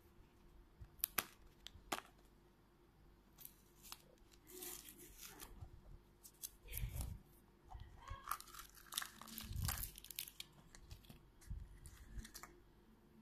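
A sticker seal being peeled and torn off a clear plastic surprise egg, with scratchy tearing and crinkling. There are a few sharp clicks from the plastic shell as it is handled and pulled open.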